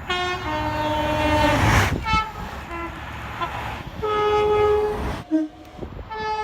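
Train horn sounding in repeated blasts of several tones at once: a long blast, a short one, another long blast and a short one, then a new blast near the end, over a low rumble.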